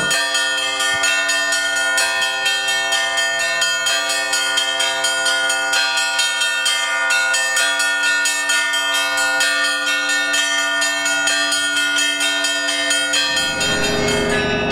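Russian Orthodox church bells rung together in a rapid peal: quick strikes of small bells, several a second, over the steady ringing of larger bells.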